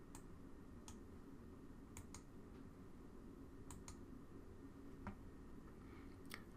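Faint clicks of a computer mouse button, about eight of them, several in quick pairs, over low room noise.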